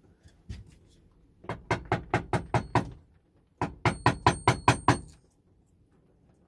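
Wooden mallet tapping a chisel as it pares out a router-cut bowtie pocket back to the layout line: two quick runs of about eight light taps each, a short pause between them.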